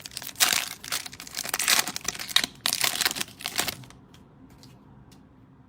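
Plastic cello wrapper of a trading-card pack crinkling as it is handled and opened, stopping a little under four seconds in; a few faint clicks follow.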